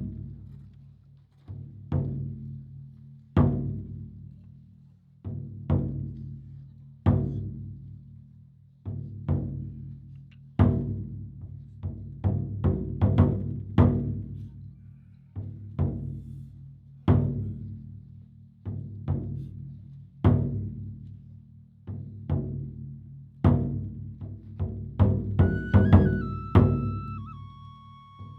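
Taiko drumming: heavy, deep drum strikes roughly every two seconds, each ringing on, with quicker lighter strikes in between that crowd together at times. Near the end a high held tone comes in and steps down in pitch.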